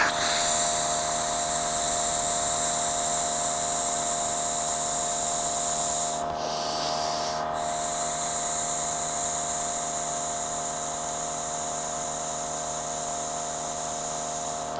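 Breath blown steadily through a small hose into an exhaust gas analyzer, a long breathy hiss that stops for about a second, about six seconds in, and then starts again. A steady mechanical hum runs underneath.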